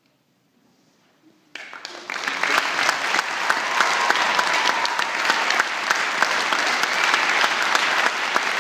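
Audience applause at the end of an orchestral piece: after about a second and a half of near silence, clapping starts suddenly and quickly builds to full, steady applause.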